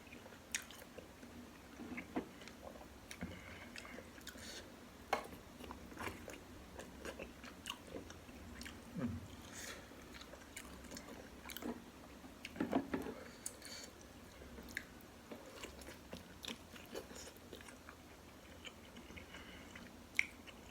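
Close-miked chewing and biting of bakso meatballs and beef rib meat: scattered soft smacks, slurps and small clicks at an irregular pace.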